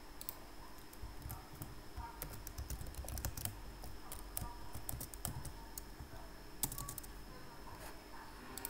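Typing on a computer keyboard: irregular keystrokes in short runs, over a faint steady high-pitched whine.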